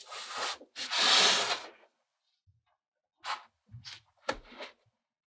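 Kinetic sand crunching and rustling as a hand squeezes and packs it into a plastic mould: two longer strokes, then three short scrapes in the second half, one of them starting with a light knock.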